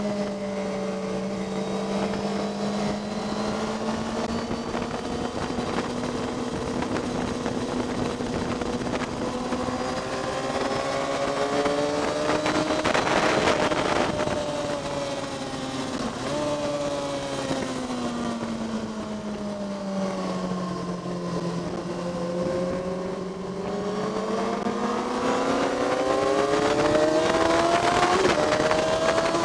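Onboard sound of a motorcycle engine being ridden hard on a race track. The engine note falls and climbs through the corners, with a sudden change of pitch about halfway through. A rush of wind noise comes with the loudest stretches.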